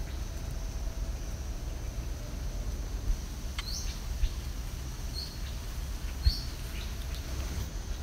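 A few short, high bird chirps in the middle, over a steady low rumble of wind on the microphone.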